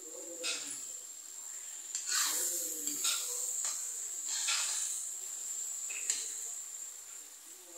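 Steel spoon scraping and stirring thick mashed pumpkin sabzi against a metal kadhai in several strokes, over a steady sizzling hiss as the sabzi's water cooks off on high heat.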